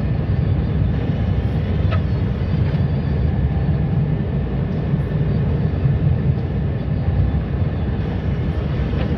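Snowplow truck heard from inside the cab while plowing: a steady low rumble of engine and road noise.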